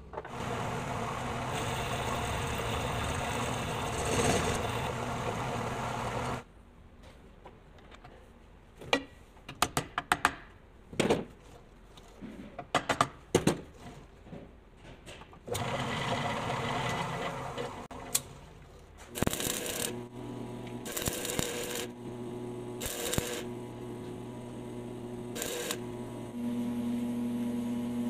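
Homemade lathe's electric drive running steadily for about six seconds, then stopping. Several sharp metal clinks and knocks follow as the spindle parts are handled, then the lathe runs again and starts and stops several times before settling into a steady hum near the end.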